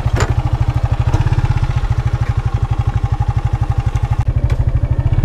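Suzuki Gixxer 155's single-cylinder engine idling with a steady, even pulse, its valve clearance freshly adjusted.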